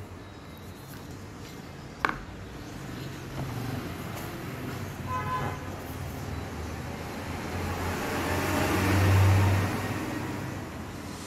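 Street traffic: a vehicle passes, its noise swelling with a low hum that peaks near the end and then fades. A short horn toot sounds about five seconds in, and a single sharp click comes about two seconds in.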